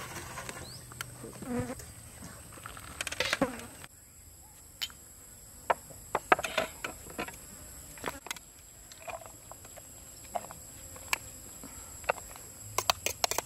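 Spoons, glasses and utensils clinking and tapping against metal trays and plates in a string of short, sharp clicks, over a steady high insect drone.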